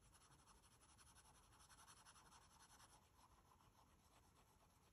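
Faint scratching of a 2B graphite pencil shading on sketchbook paper, in quick, closely spaced strokes.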